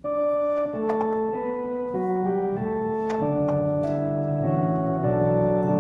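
Keyboard music with held, organ-like chords starts abruptly and moves at a slow, stately pace.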